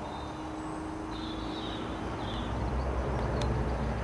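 Small single-cylinder petrol engine with a MAX-TORQUE torque converter running, a steady low rumble that grows louder in the second half, with one light click about three and a half seconds in.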